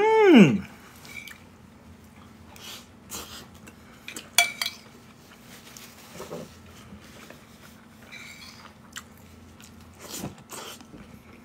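A metal spoon clinks and scrapes now and then against a ceramic bowl, with quiet chewing in between. A short hum that rises and falls in pitch comes right at the start.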